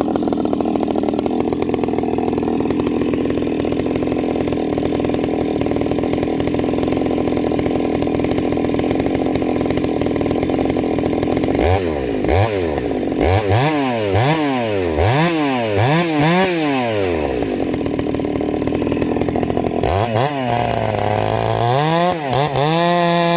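Husqvarna 390 XP two-stroke chainsaw with a ramhorn muffler, running hard and steady for about ten seconds as if under load in a cut. It is then revved up and down about six times in quick succession. Near the end it climbs again to a steady high-pitched run.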